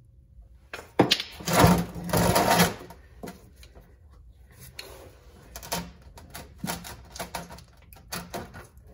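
Hand tools clicking and scraping against the steel rear differential cover as it is worked loose, with a louder clattering, scraping stretch about a second in, then scattered light clicks and taps.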